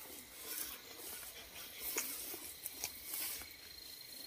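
Tall grass and weeds rustling and crackling as they are brushed and pushed aside, with a few sharp snaps of stems, the sharpest about two seconds in.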